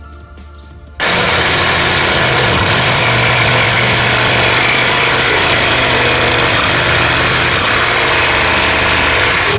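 Ryobi cordless reciprocating saw running steadily at full speed, cutting through the old pool pump's PVC plumbing, which has no unions. It starts abruptly about a second in and stops suddenly at the very end.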